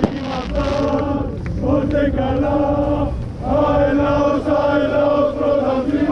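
A crowd of football supporters chanting in unison, long held notes sung in phrases with a short break about three seconds in. A sharp bang at the very start.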